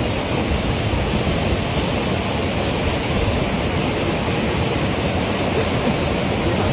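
Steady, loud rushing noise of wind buffeting the microphone during a snowstorm, heaviest in the low end; it cuts in suddenly at the start.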